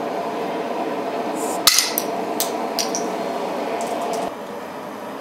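A hand-forged steel bottle opener levering the crown cap off a glass bottle of carbonated soda. A short hiss and a sharp pop come about a second and a half in, followed by a few light metallic clinks.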